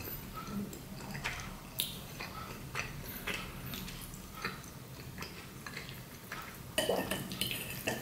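Close-miked eating of spaghetti in tomato meat sauce: wet chewing and mouth clicks, and a metal fork clinking and scraping on a ceramic plate as noodles are twirled, loudest about seven seconds in.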